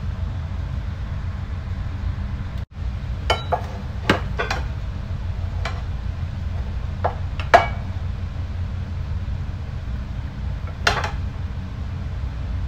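Metal spoon clinking against a pan and a glass baking dish as penne in meat sauce is scooped out and laid onto béchamel. There are about eight sharp clinks, most in the middle and one near the end, over a steady low hum.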